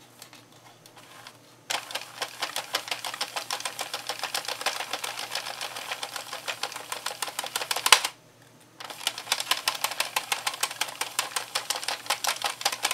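Sentro 22-needle plastic circular knitting machine being hand-cranked: a fast, even run of plastic clicks as the needles rise and fall. It starts about two seconds in, breaks off after a louder clack near eight seconds, and picks up again a moment later.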